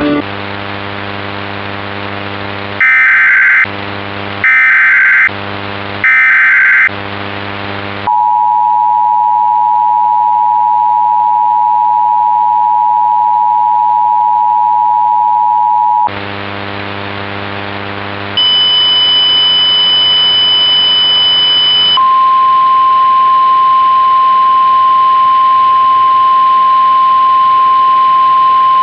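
Emergency Alert System tones over a steady electrical buzz. First come three short bursts of screechy SAME header data tones, about a second apart. Then the two-tone EAS attention signal holds steady for about eight seconds, and after a short gap of buzz one long steady high beep tone follows, shifting pitch slightly partway through.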